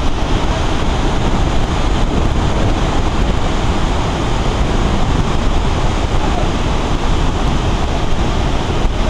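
Ocean surf breaking along a beach: a steady, unbroken rushing wash, with wind rumbling on the microphone.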